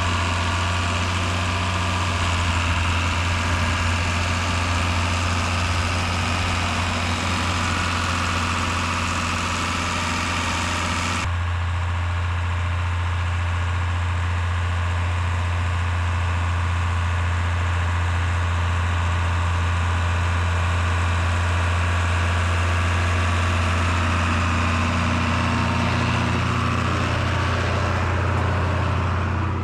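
Heavy diesel farm engine running steadily with a deep, even hum. About eleven seconds in, the sound changes abruptly and loses much of its higher hiss.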